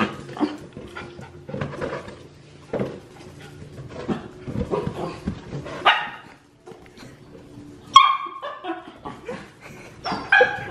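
Small dog barking at a balloon in short, high yips, a few times, the loudest about eight seconds in.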